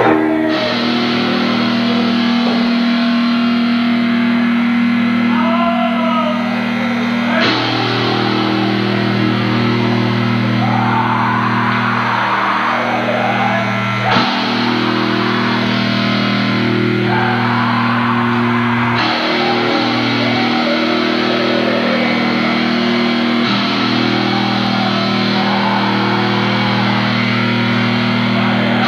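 Black metal band playing live: heavily distorted electric guitar and bass holding long chords, changing chord every several seconds.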